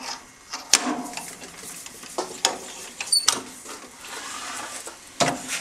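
Scattered metallic clicks and clinks as a bit is fitted into a metal lathe's tailstock drill chuck and the chuck is tightened by hand, with a short high metallic ring about three seconds in.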